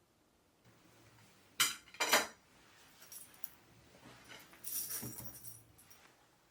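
Small hard household objects being handled: two sharp clinks about a second and a half in, then a longer rattling clatter around five seconds.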